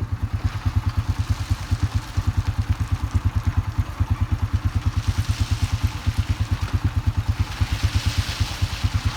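An engine running at a steady idle: an even, low throb of about eight beats a second.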